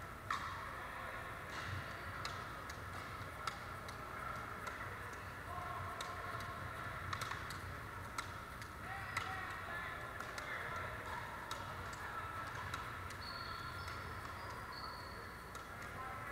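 Pickleball paddles striking the plastic ball and the ball bouncing on the gym floor: irregular sharp pops and clicks from several games, over a faint murmur of players' voices.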